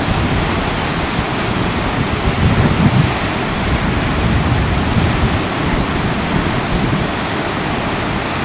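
Whitewater rapids rushing steadily over a standing wave, with wind buffeting the microphone.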